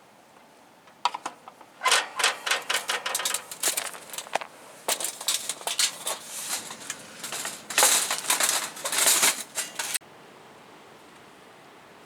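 Rapid, sharp clicking and rattling in dense clusters, like small hard objects being handled close up; it starts about a second in and stops abruptly about ten seconds in.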